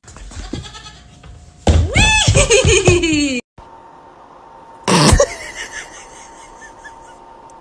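Goat kid bleating loudly for about two seconds, its cry rising and falling in pitch. A second short, loud cry follows about five seconds in.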